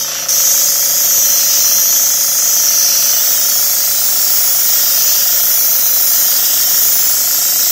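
Paint spray gun hissing steadily as it sprays thinned water-based acrylic paint, with a steady mechanical hum underneath; the spray cuts off abruptly at the end.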